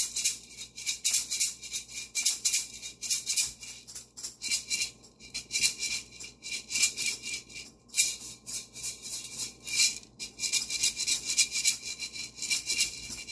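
A pair of maracas shaken in quick, uneven strokes while being rubbed against a cat's back: a dry, rapid rattle of many shakes a second, rising and falling in loudness.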